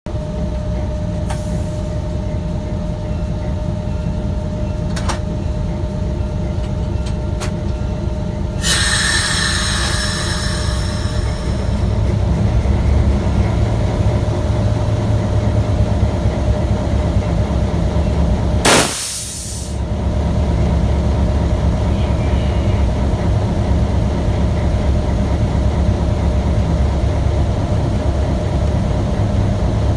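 Passenger train rolling slowly on the rails: a steady low rumble with a few sharp clicks, and a hissing wheel squeal on the curve for a couple of seconds about a third of the way in. A short loud rush comes about two-thirds of the way through.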